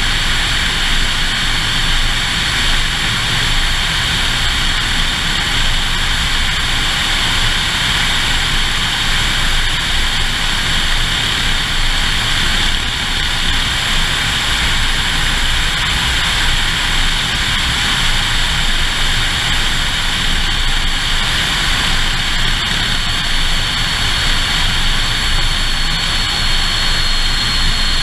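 Single-engine Cessna's piston engine and propeller running steadily through the landing approach, mixed with wind rushing over the microphone. A faint high thin tone appears in the last few seconds.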